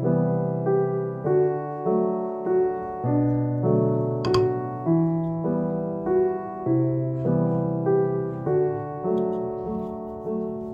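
Background piano music, a gentle piece of evenly paced notes, with a single click about four seconds in.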